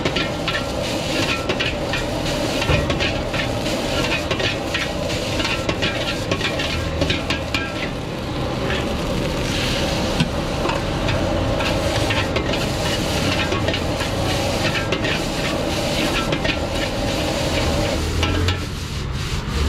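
Fried rice stir-frying in a wok over a high gas flame. A metal ladle scrapes and clanks against the wok many times over steady sizzling, with a steady burner hum that drops away near the end.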